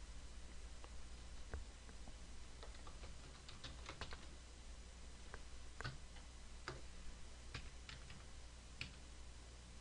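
Faint computer keyboard keystrokes, scattered single taps with a quick run of them about four seconds in, over a low steady hum.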